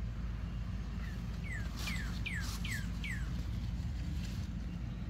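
A bird calling a quick run of about six short falling chirps, about a second in, over a steady low rumble.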